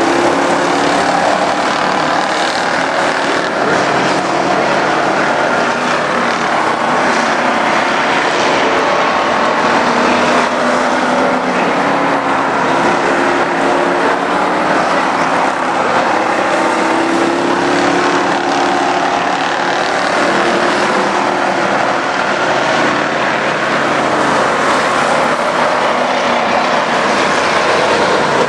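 Street stock race cars running flat out around a dirt oval, several engines overlapping, their pitch rising and falling as they accelerate and pass by.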